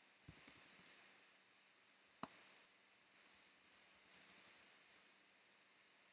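Faint computer keyboard typing: soft, irregular key clicks, with one louder key strike about two seconds in, over a low hiss.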